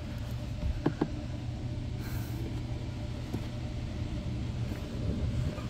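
New cabin air filter being handled and fitted into its plastic housing under the dash, giving two light clicks about a second in and a fainter one later, over a steady low rumble.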